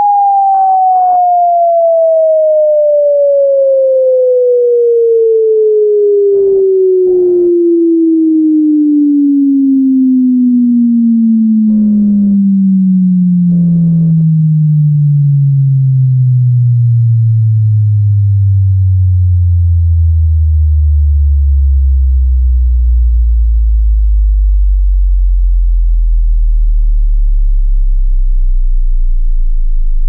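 A pure sine-wave test tone sweeping steadily down in pitch, from about 850 Hz to a deep bass tone of about 26 Hz. It is a frequency-range test sweep for speakers or headphones, meant to play with no distortion.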